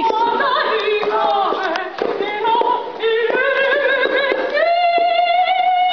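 A woman singing unaccompanied in an operatic style: wavering, quickly changing phrases, then a long high note held steady from about two-thirds of the way in.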